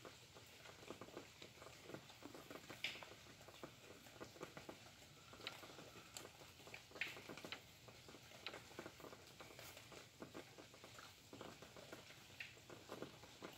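Faint rain falling, drops pattering irregularly with a scattered few louder drips.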